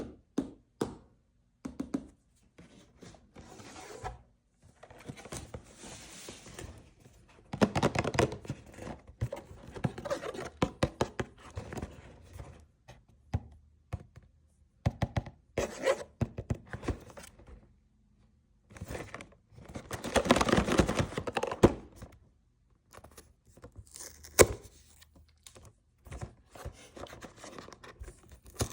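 Hands opening a blind box: cardboard and plastic packaging being handled, torn and crinkled, with scattered taps and thunks and two longer spells of dense crackling, the louder one about two-thirds of the way through.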